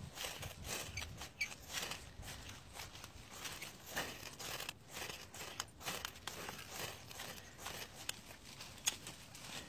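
A ferro rod being struck again and again over a tinder bundle of dry grass: repeated short, rasping scrapes of the striker along the rod, uneven in spacing, as someone tries to throw sparks into the tinder.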